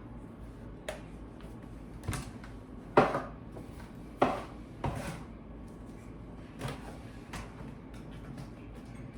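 Kitchen items being handled while cooking: about seven irregular knocks and clacks of containers, lids or cupboard doors, two of them louder, over a steady low hum.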